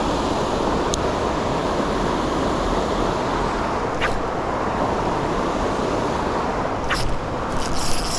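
Creek rapids rushing: a steady, even roar of fast-flowing white water, with a few faint small clicks over it.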